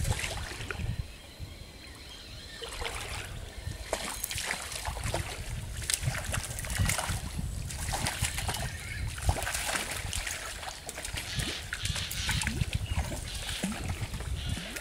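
Hooked brown trout splashing repeatedly at the surface of a small stream as it is played and brought in, over the steady trickle of the flowing water.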